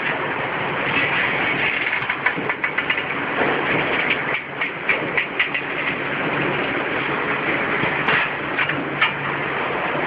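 Roll forming machine running, its forming rollers working a punched steel strip with a steady mechanical rumble. Irregular sharp metallic clicks and knocks come about two to five seconds in and again near the end.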